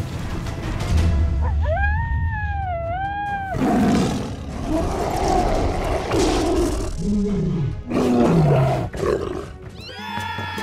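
Cartoon monster roars and cries over background music: a high, wavering screech about two seconds in and lower falling growls around seven to eight seconds. Near the end a new tune with held notes begins.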